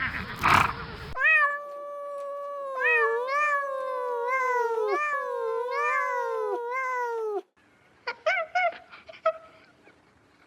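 Cat meowing: a long, drawn-out call that wavers up and down for about six seconds, then after a brief break a run of short meows. In the first second, before the meowing, a noisier animal sound cuts off.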